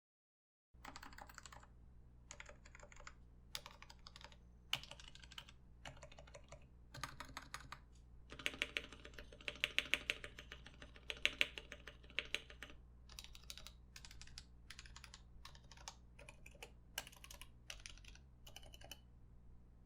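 Realforce 87u keyboard with Topre switches, sliders lubed and space bar dampened, being typed on: keystrokes in short bursts, with a fast, louder run about halfway through, stopping near the end.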